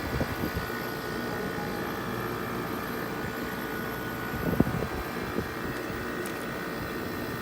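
Haier window air conditioner running steadily just after start-up, its compressor and blower fan making an even hum with a constant whine. A brief louder noise comes about halfway through.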